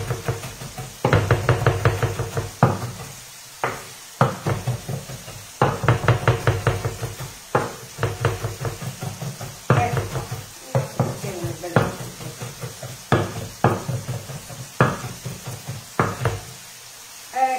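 Kitchen knife rapidly chopping fresh parsley on a wooden cutting board, in fast runs of knocks a second or two long separated by short pauses.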